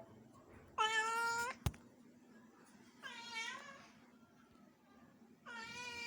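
Domestic cat meowing three times: two short, steady meows, then a longer one that starts near the end. A single sharp click comes just after the first meow.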